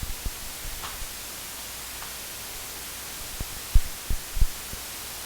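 Steady background hiss, with a few soft, short low thumps about four seconds in.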